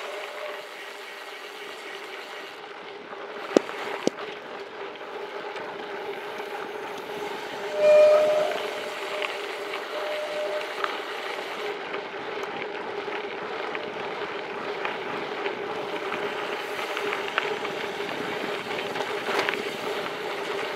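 Gravel bike descending fast on a dirt road: tyre rumble and wind with a steady hum, and two sharp knocks about three and a half and four seconds in. About eight seconds in the disc brakes give a loud, horn-like squeal, with a shorter, fainter one two seconds later.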